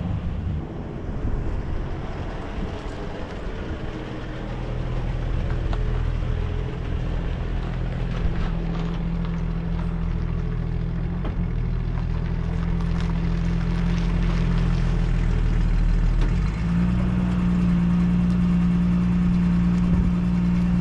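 1965 Ford Falcon's engine running, growing gradually louder, with its note stepping up about 16 seconds in and then holding steady.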